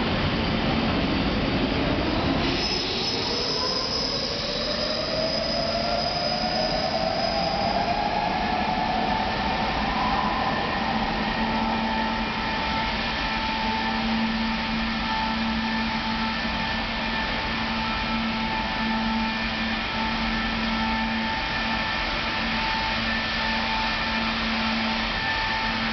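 Brussels STIB metro train pulling out of an underground station and running off into the tunnel. Its motor whine rises steadily in pitch for about the first ten seconds as it accelerates, then holds level. A steady low hum runs underneath, and a thin high squeal is heard a few seconds in.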